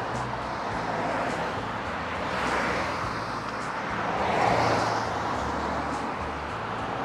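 Cars passing close by on a two-lane road, their tyre and engine noise swelling and fading, loudest about two and a half and four and a half seconds in.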